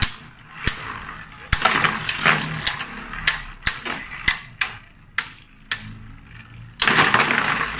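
Two Beyblade Burst spinning tops battling in a plastic stadium: about a dozen sharp clacks as they strike each other, over a scraping whir of their tips on the floor that turns loud near the end.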